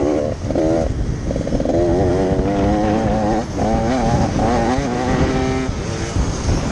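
Motocross dirt bike engine heard close up from on board while riding. The revs climb and drop again several times as the throttle is opened and shut, with short breaks in the engine note where the throttle is chopped.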